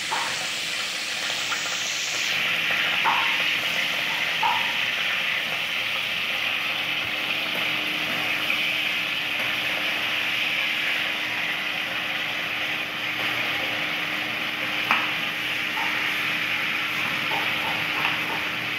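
Pork pieces sizzling in a stainless steel kadai, a steady frying hiss, with a metal spoon clinking and scraping against the pan a few times as the meat is stirred.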